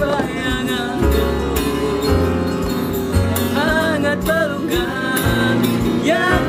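Two young male voices singing a song together to a strummed acoustic guitar.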